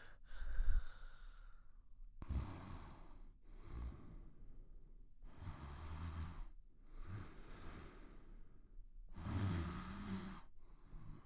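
Slow, heavy breathing in sleep with snoring: about three full breaths, each a longer noisy breath followed by a shorter one, some with a low snore in them.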